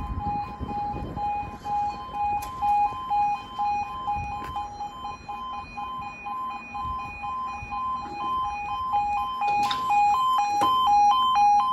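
Level crossing yodel alarm sounding as the barriers lower, a warning of an approaching train: an electronic two-tone warble that alternates steadily between two pitches. Near the end a second, faster-warbling alarm tone joins in, with a single sharp knock.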